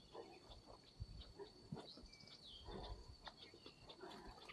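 Near silence: faint outdoor ambience, with a steady high-pitched tone and scattered soft ticks and low thumps.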